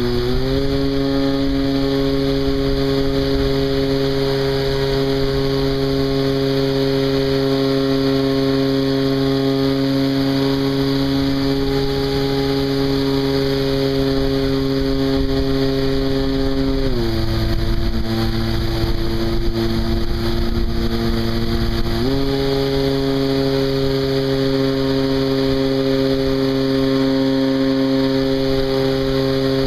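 Hangar 9 Cub model plane's engine and propeller, heard close up from on board, running steadily at high throttle as the plane climbs after takeoff. About 17 seconds in, the pitch drops as the throttle is eased back, and about five seconds later it rises again to full power.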